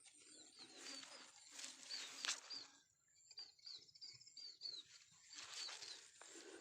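Faint, quick high chirps of small birds repeating throughout, with two stretches of rustling noise and a sharp click just after two seconds in.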